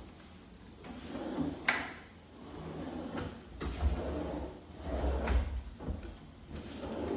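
Kitchen cabinet drawers sliding open and shut on their runners about five times in a row, with a sharp knock as one closes at about two seconds in.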